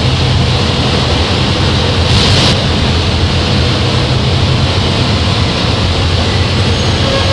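Harsh noise music from analogue synthesizer and fuzz and distortion pedals: a dense, loud wall of distorted noise over a heavy low rumble, with a brief hissing surge about two seconds in.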